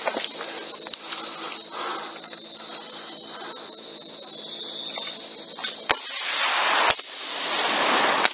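Steady, high-pitched chorus of night insects. About six seconds in it breaks off, and three sharp cracks follow roughly a second apart, with a rough, noisy rushing sound swelling between them.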